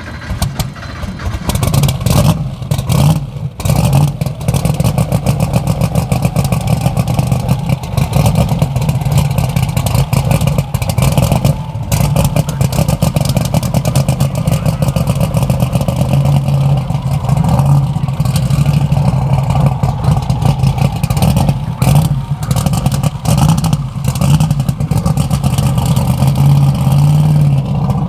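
The supercharged, fuel-burning engine of a land-speed streamliner running at the start line: a steady low drone with a dense, rapid rattle of firing pulses, growing a little stronger about halfway through.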